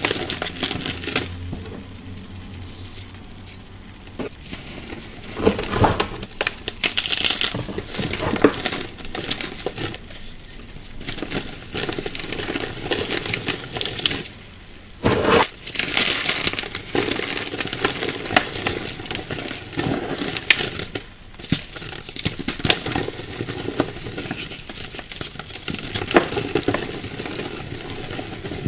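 Hands crushing and rubbing soft, dry chalky clay into powder: a continuous fizzy, crackling crunch, the "foamy sizzle" of crumbling chalk, in uneven handfuls with a few louder crunches along the way.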